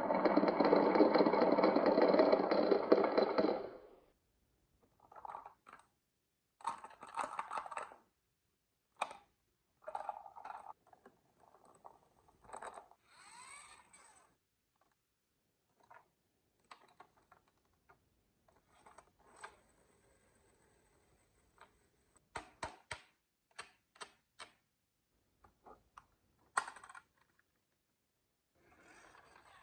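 Marbles and small toy vehicles rolling and clattering down a wooden marble run track. A loud continuous rattle lasts about four seconds, then gives way to scattered clicks and short rattles.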